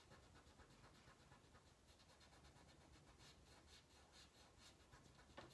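Faint rubbing of a fingertip over paper, smudging pencil shading into a soft gray shadow, in a quick run of short, soft strokes.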